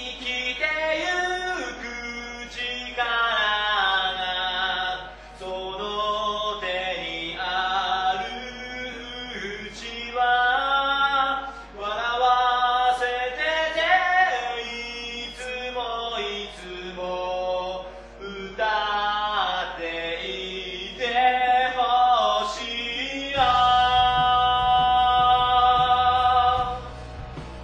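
Sung vocals in a sing-along cover mixed over the original recording of a Japanese rock song, pitched down five semitones. The voices carry the song with little backing until a low bass part comes in about 23 seconds in.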